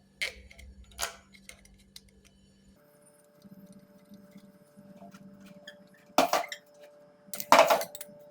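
Parts being handled during workshop assembly: four sharp knocks and clanks, two about a second apart at the start and two louder ones near the end, over a faint steady hum.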